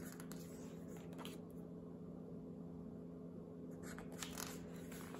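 Pages of a hardcover picture book being handled and turned: soft paper rustles near the start and about a second in, then a louder page turn about four seconds in. A faint steady low hum sits underneath.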